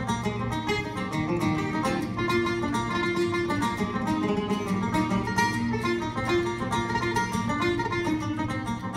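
Tenor banjo picking a fast Irish traditional tune in quick, even notes, with acoustic guitar strumming chords underneath.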